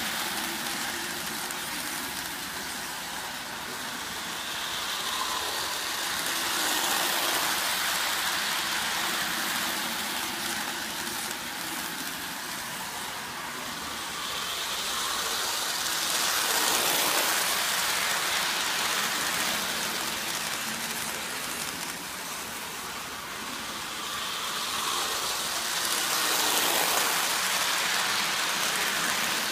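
O-gauge model train running on three-rail track: a steady noise of metal wheels and motor that swells three times, about every ten seconds, each time the train comes round past the microphone.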